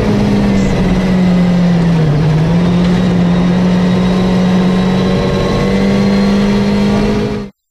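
Hyundai i20 WRC rally car's turbocharged four-cylinder engine running hard at high revs, heard from inside the cabin, with tyre and road noise. The engine note holds steady, dips briefly about two seconds in, then climbs back, and cuts off abruptly near the end.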